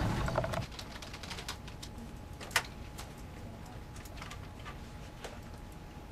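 Computer keyboard typing: scattered, irregular key clicks, with one louder click about two and a half seconds in.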